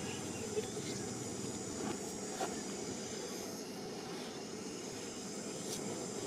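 Steady outdoor background noise: a low rumble with a thin, steady high hiss above it, and a few faint clicks.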